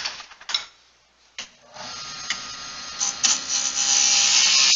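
A few wooden knocks, then under two seconds in a Jet wood lathe starts and runs with a steady hum. From about three seconds in, a turning tool cuts the spinning spindle with a loud hiss of shavings, taking out a flat spot in a concave curve.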